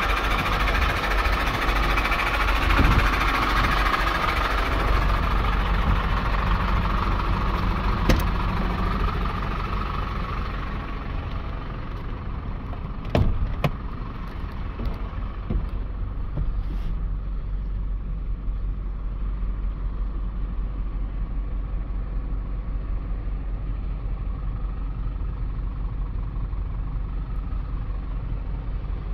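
MAN TGL 12.220 truck's four-cylinder diesel idling steadily. Partway through there is a sharp thump, after which the idle sounds duller and more muffled.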